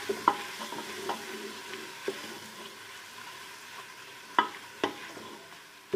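Onions and ginger-garlic paste sizzling in hot ghee in a metal pot, fried to cook off the paste's raw taste. A spoon stirs and scrapes through them, with several sharp knocks against the pot, two of the clearest a bit past the middle.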